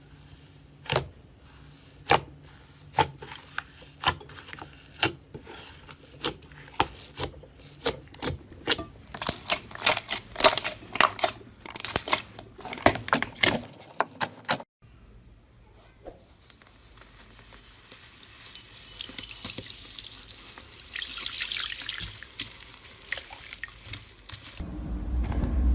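Slime being squished and poked by hand, giving a run of sharp, wet clicks and pops that come faster and louder over about fifteen seconds. After a cut comes a softer, hissing crackle.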